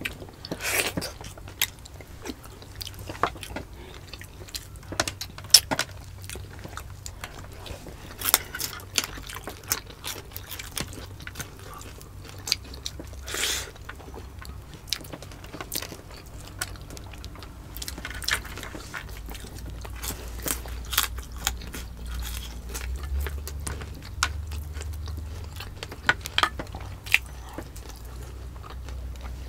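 Close-miked eating of balbacua beef stew: chewing and biting, with many irregular, sharp mouth and finger clicks.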